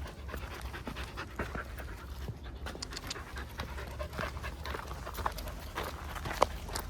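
A dog panting, among scattered short clicks and crackles, with one sharper click about six and a half seconds in.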